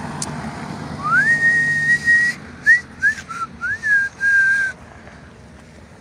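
A person whistling a short tune: a note that slides up and is held, a few quick short notes, then another slide up to a held, slightly lower note.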